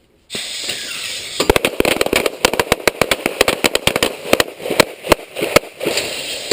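A line of semi-automatic pistols firing a timed string of rapid, overlapping shots for about four seconds, two-handed and then weak hand only. A steady rushing noise starts just before the shooting and runs on after it.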